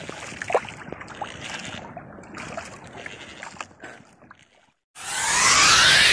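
Wind and water noise on a small outrigger boat at sea, with scattered light knocks, fading out about four and a half seconds in. Half a second later a loud electronic whoosh sound effect starts, its tones sweeping up and down across each other.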